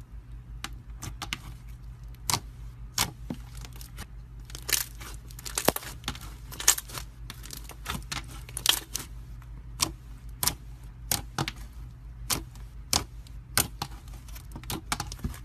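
Thick slime being pressed, poked and kneaded by fingers, giving many sharp, irregular pops and clicks, over a steady low hum.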